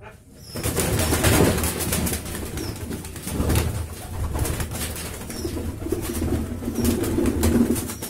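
Domestic pigeons cooing. From about half a second in there is loud rustling and knocking alongside, and the low cooing comes out strongest near the end.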